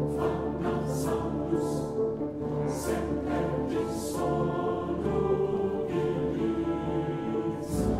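Choral music: a choir singing long held notes over a steady accompaniment.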